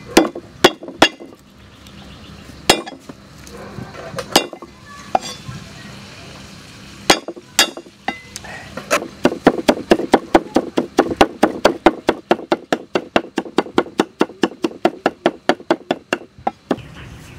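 Steel cleaver striking a thick wooden chopping block: a few separate chops and knocks while garlic cloves are cut and smashed, then from about halfway a fast, steady run of about five or six chops a second as the garlic is minced, stopping shortly before the end.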